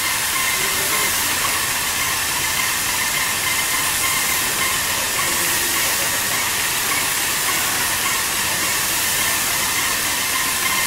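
Spray gun of a Putzmeister A 190 airless paint sprayer hissing steadily as it atomizes paint at the tip, with a faint steady whine underneath.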